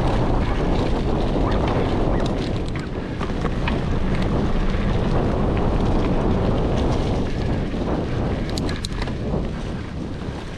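Wind buffeting a GoPro action camera's microphone while riding a mountain bike over a trail, with tyre and trail rumble and scattered sharp clicks and rattles from the bike over rough ground, a cluster of them near the end.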